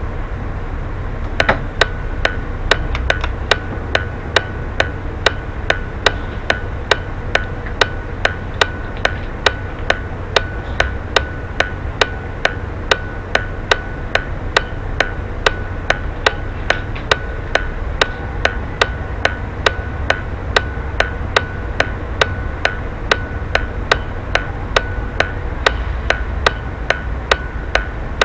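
Bus turn-signal indicator ticking steadily, a couple of ticks a second, starting about a second and a half in, over the low rumble of the bus's diesel engine idling while it waits at the light.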